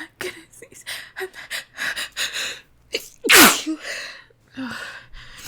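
A woman's sneeze building up: several quick, catching in-breaths, then one loud sneeze a little over three seconds in, followed by a few softer breaths. It is a sneeze she had been trying to hold back, breaking through.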